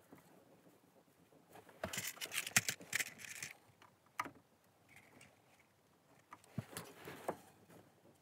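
Handling noises from speaker wire being run and tucked along a car's rear deck trim: bursts of rustling and sharp clicks, loudest about two to three and a half seconds in, with a single click around four seconds and another cluster near the end.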